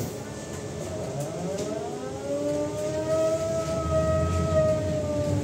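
AKSM 321 trolleybus's electric traction motor whining as it accelerates away from a stop: a rising whine of several tones that climbs for about two seconds, then holds steady and begins to ease near the end, over a low rumble of the moving vehicle.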